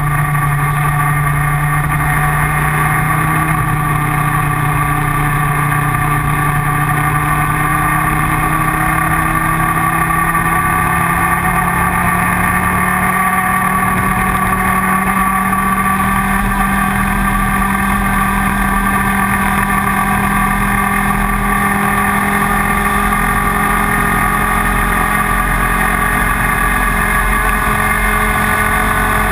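IAME Leopard 125cc two-stroke kart engine running steadily under way, its pitch climbing slowly and evenly.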